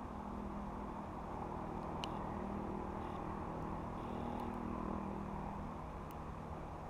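A low, steady engine hum over background noise that fades out near the end, with one faint click about two seconds in.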